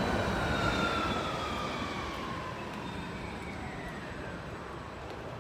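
A passing vehicle on a city street, its whine falling slowly and steadily in pitch as the sound fades away.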